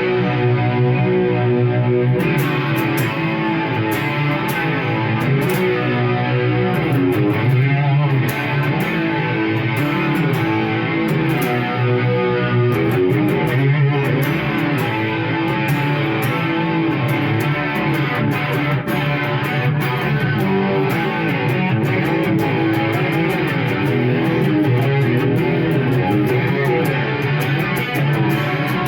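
Electric guitar played continuously through a Marshall MG100HFX amplifier head and cabinet.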